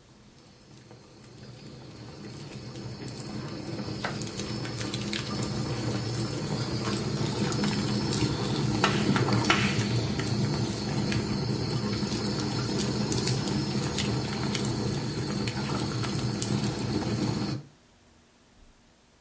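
Ambient soundscape played through the MorningBlues SonicGlass A1 speaker: a steady rushing, hissing noise with scattered small clicks. It fades in over several seconds and cuts off suddenly near the end.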